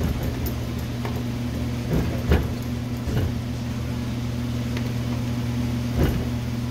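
A few sharp metal clicks and knocks from a socket wrench working on a differential's 14 mm ring-gear bolts, the loudest about two seconds in; the bolts don't break loose. A steady low hum runs underneath.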